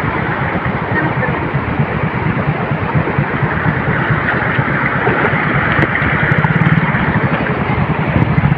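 Small motorcycle engine idling with a fast low pulse, over the hiss of water running across the road. About six seconds in, a second motorcycle engine grows louder as it approaches.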